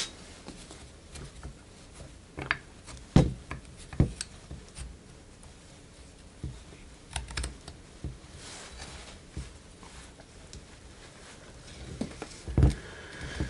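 Scattered light metal clicks and taps from a Porsche 944 front brake caliper's pad pins, spring and wire retaining clip being handled, with a few heavier knocks of the caliper body, the loudest about three seconds in and near the end.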